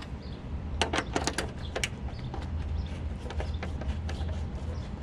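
Hand tool clicking and rattling against metal while the Allen screw on a Mustang hood-strut bracket is tightened: a quick run of sharp clicks about a second in, then lighter scattered ticks, over a steady low hum.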